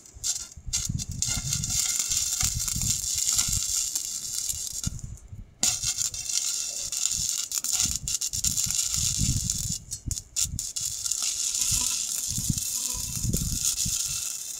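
Stick (arc) welding on a steel pipe joint with a small portable inverter welder set to about 75 amps: the electrode's arc gives a steady crackling hiss. The arc breaks off briefly three times, near the start, about five seconds in and near ten seconds.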